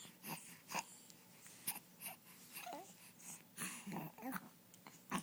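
A baby's quiet vocal sounds: a few short, soft whimpers and breaths, with small clicks between them.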